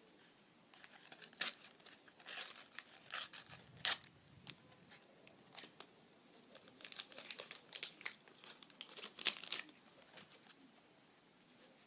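Sticker packets being torn open and their wrappers crinkled: a run of short, crackling tears with brief pauses between, loudest about four seconds in.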